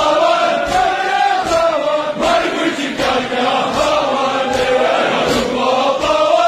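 A large crowd of men chanting a noha in unison, their voices massed like a choir. Sharp beats come in time with the chant about every three-quarters of a second: the mourners striking their chests in matam.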